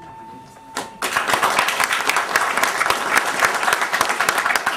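A crowd applauding. The clapping breaks out about a second in and goes on steadily, much louder than the quiet moment before it.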